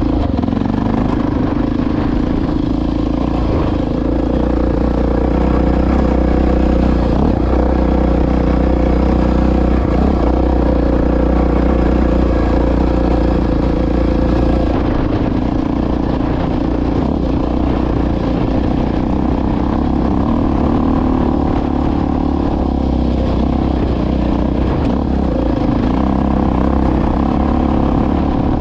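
Honda XR650R dirt bike's big single-cylinder four-stroke engine running steadily while riding along.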